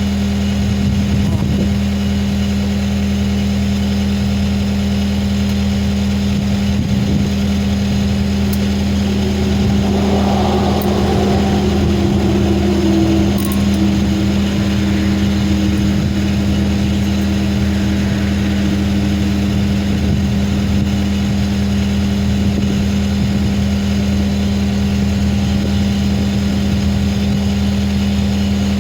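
Skid steer's engine idling steadily, with a brief falling whine about ten seconds in.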